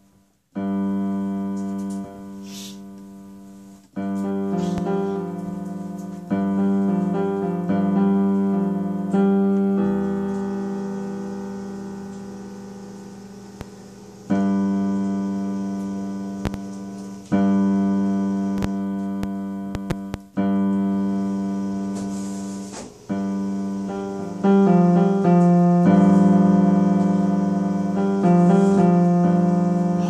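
Slow solo piano playing: sustained chords struck every few seconds, each left to ring and fade before the next.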